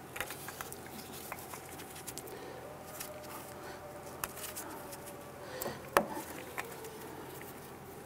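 Gloved hands handling and clipping an ABS sensor wire: light rustling and small plastic clicks, with one sharper click about six seconds in.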